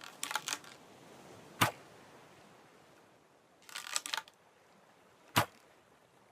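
Bow sound effect done twice: each time a quick run of small clicks, then about a second later a single sharp snap, the loudest sound.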